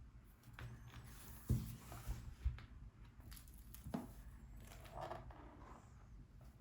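Pages of a book being turned by hand: several short paper swishes and rustles, with a few soft thumps as the pages fall or the book is handled.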